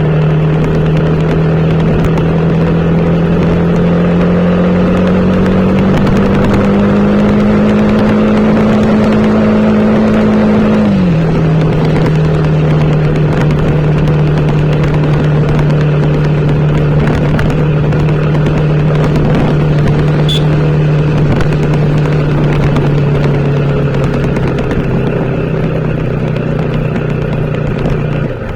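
TVS Apache RTR 160 4V's single-cylinder engine running under way, its pitch slowly climbing for about ten seconds, then dropping suddenly about eleven seconds in and holding steady after, over a constant rushing noise.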